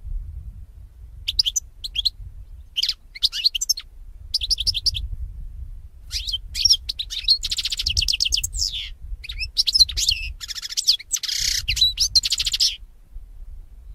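European goldfinch singing: short bursts of high, rapid twittering that grow longer after about six seconds, with fast buzzy trills near the middle and towards the end. A low rumble runs underneath.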